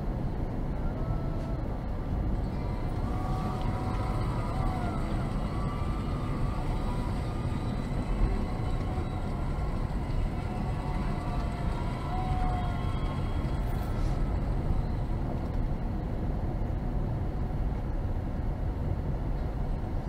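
Car cabin noise while driving slowly: a steady low rumble of engine and tyres heard from inside the car. Faint wavering tones come and go over the first two-thirds.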